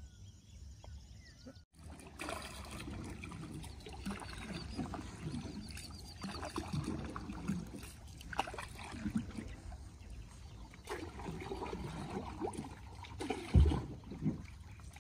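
Water trickling and splashing around a small fishing boat, with scattered light clicks and knocks and one louder thump near the end.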